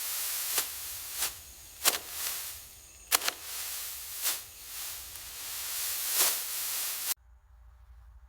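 Irregular splashes in shallow paddy water over a steady hiss, about six of them, from hands and feet working in the flooded mud while rice seedlings are planted; the sound cuts off abruptly about seven seconds in.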